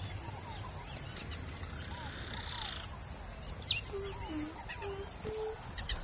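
Birds chirping and calling outdoors, with one sharp, louder call about three and a half seconds in, over a steady high-pitched hiss.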